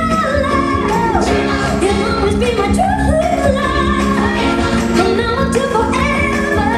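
A song with a singing voice over instrumental accompaniment and a steady beat, the singing line gliding up and down.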